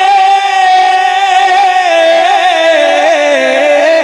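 A man's voice singing a naat unaccompanied into a microphone. He holds one long high note, then about two seconds in drops lower into quick wavering ornamental turns.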